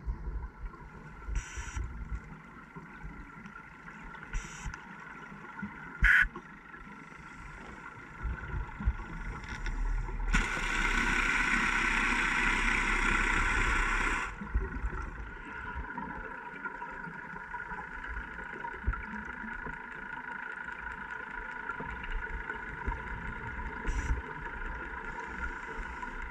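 Underwater sound picked up inside a camera housing on a scuba dive: a regulator's exhaled bubbles rush for about four seconds near the middle, over a steady faint hum, with a few sharp clicks.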